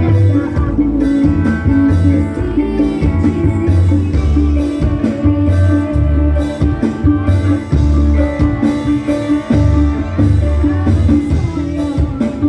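Background music with a steady, repeating bass line under a layered instrumental accompaniment.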